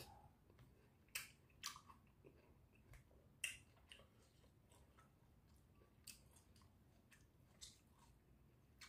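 Faint chewing of food, broken by a handful of short, sharp clicks spaced a second or more apart.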